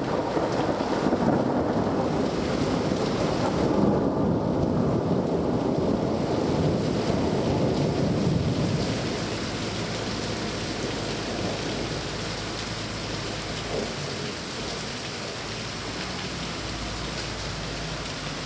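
A long thunder rumble that fades out about nine seconds in, over heavy rain that keeps falling steadily after it.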